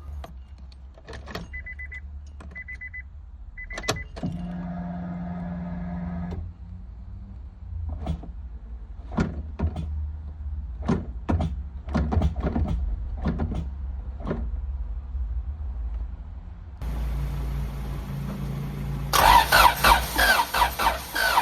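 A Honda Civic with a B16 engine being started: clicks, three short high beeps, and a steady hum of about two seconds. Then the starter cranks the engine near the end, with loud rhythmic pulses in the last couple of seconds.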